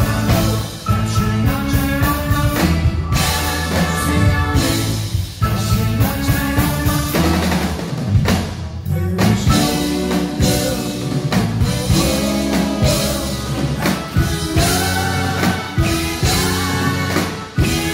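Live band with a horn section, including trombone, playing over drums and bass.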